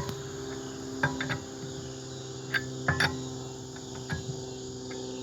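Scattered metal clicks and knocks from a lug wrench working the lug nuts on a car wheel, about half a dozen spread across a few seconds, over a steady low hum.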